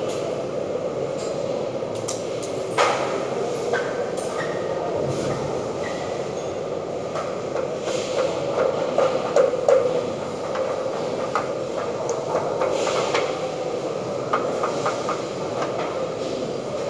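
Scattered clicks and knocks of hand work on a wall-mounted panel box, the sharpest about three seconds in and a cluster around the middle, over a steady loud mechanical din.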